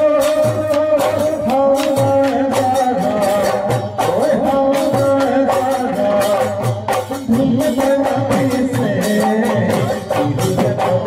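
Live Assamese folk music: a man singing long held notes into a microphone over a fast, steady beat on a two-headed dhol drum.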